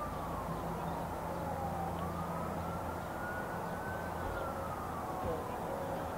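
Siren wailing, its pitch falling and rising slowly, each sweep taking about two seconds.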